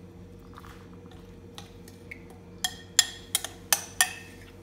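Steel spoon working thick semolina batter into the moulds of a metal idli stand: soft wet scraping, then about six sharp metallic clinks in the last two seconds as the spoon knocks against the plate.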